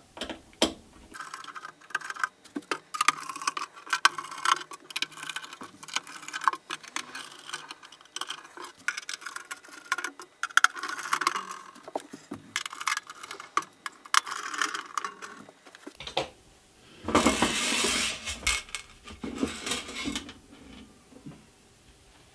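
Torx screws being undone from an oscilloscope's sheet-metal top cover, with many small metallic clicks and clinks of the driver and of loose screws set down on the cover. Near the end come a few longer scraping rustles as the screws are gathered up off the cover.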